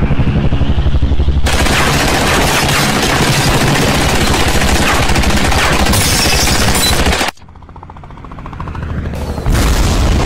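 Rapid, continuous machine-gun fire with a dense rumble under it, cutting off suddenly about seven seconds in. A swell rises after the cut, and a loud blast comes near the end.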